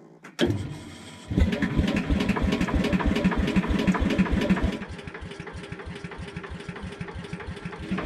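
Old lawn tractor's small engine cranked over and catching just over a second in, then running with an even, rapid firing beat; a little before five seconds it drops to a quieter, lower run.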